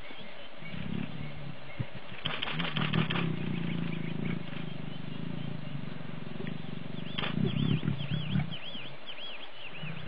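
Lions growling and snarling: a harsh snarl about two seconds in, then a long low growl that goes on through the middle, with rougher growls again near the end.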